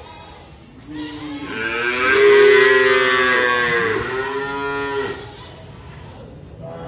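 A bovine moos once: one long, loud call that swells from about a second in, is loudest near the middle, dips in pitch near the four-second mark and stops at about five seconds.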